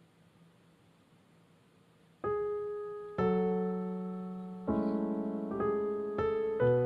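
Near silence for about two seconds, then background piano music begins: slow keyboard chords, each struck and then fading.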